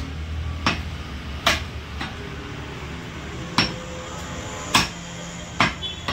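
Heavy butcher's cleaver chopping goat mutton on a wooden tree-stump block: about six sharp chops at uneven intervals, one of them lighter.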